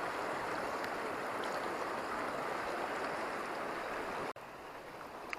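Steady rush of flowing river water, which cuts off abruptly about four seconds in to a quieter, more distant rush.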